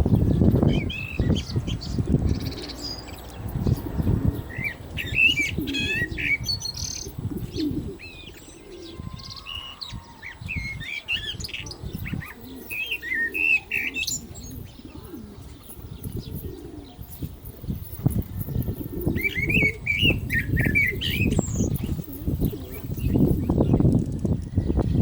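Common blackbird singing: several short warbled phrases with high, squeaky twitters, separated by pauses of a few seconds, over a steady low rumbling noise.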